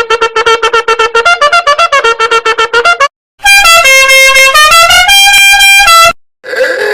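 A string of cartoonish meme sound effects: about three seconds of fast, staccato pitched notes, roughly eight a second, then a loud blaring horn-like tune whose held notes step down and back up in pitch. Another short wavering tone starts near the end.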